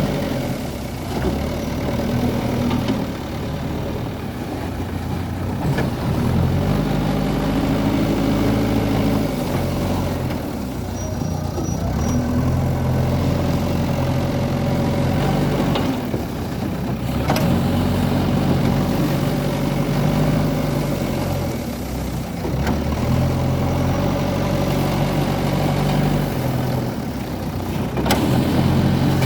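JCB 3DX backhoe loader's diesel engine running while the machine works, its pitch rising and settling back every few seconds. A few sharp knocks are heard along the way.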